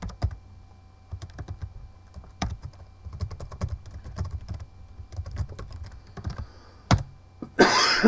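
Typing on a computer keyboard: a quick, irregular run of key clicks, with one louder keystroke about seven seconds in.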